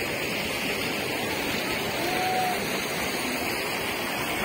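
Steady rush of running water from the garden's stone water channels.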